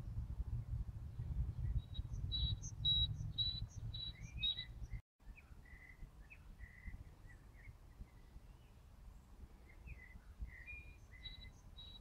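Small birds singing: a run of about six clear, evenly repeated high notes a couple of seconds in, then scattered chirps. A low rumble under the first half stops abruptly at a cut about five seconds in.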